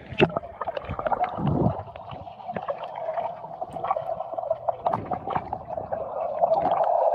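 Underwater sound of a swimming pool picked up by an action camera: muffled splashing and bubbling as it goes under, then a steady underwater hum with scattered bubble clicks.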